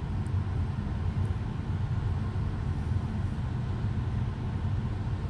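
Steady low rumble of background noise, even and unchanging, with no distinct events.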